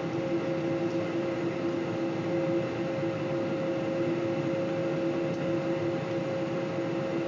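Boeing 747 jet engines running steadily, heard inside the passenger cabin during a slow taxi: an even hiss with two steady humming tones through it.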